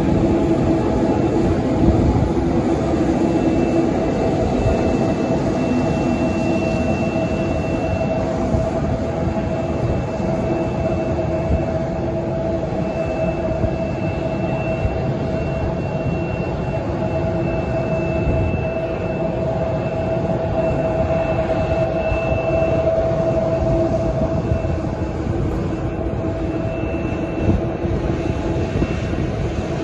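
Jet engines of a Boeing airliner taxiing at low thrust: a steady rumble with a held whine, and a faint high tone that comes and goes.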